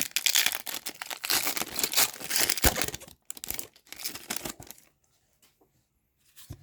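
Hockey card pack wrapper being torn open and crinkled in the hands. A dense crackling rustle runs for about three seconds, comes back briefly, then dies down to a few faint ticks about five seconds in.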